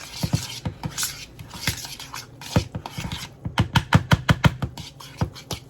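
A utensil scraping and stirring a cinnamon roll filling in a bowl, with a quick run of sharp taps against the bowl, about five a second, in the middle.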